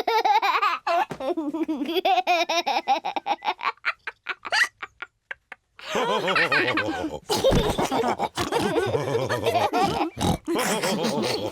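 Cartoon pig characters laughing with piggy snorts. The laughter stops for about a second near the middle, then several voices laugh together until the end.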